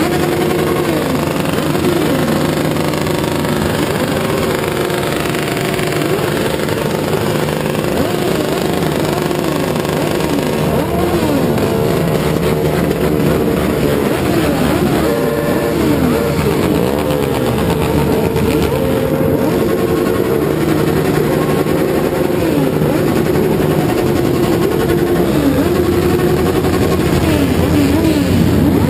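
Many motorcycle engines revving at once, their pitches rising and falling over one another in quick overlapping runs above a steady idle.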